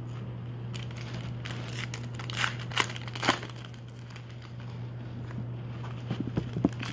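Wrapper of a Panini Chronicles basketball card pack crinkling and crackling as it is torn open and the cards are pulled out, in short irregular crackles that are loudest about two and a half to three and a half seconds in. A steady low hum lies underneath.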